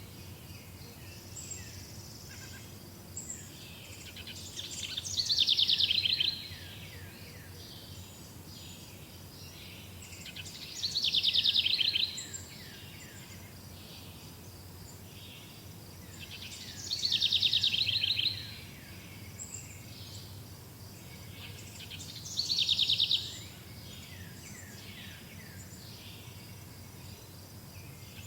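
Songbird singing a short, rapid trilled song four times, about every six seconds. Fainter chirps of other birds are heard between the songs.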